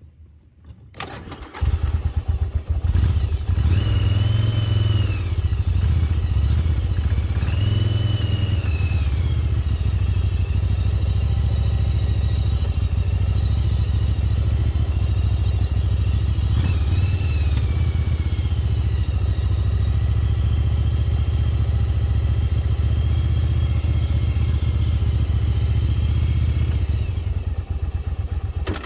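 A 1996 Yamaha Virago XV750's air-cooled V-twin starts about two seconds in and then runs steadily. The throttle is blipped a few times, with rising and falling revs. The bike has been brought back to running after sitting about ten years.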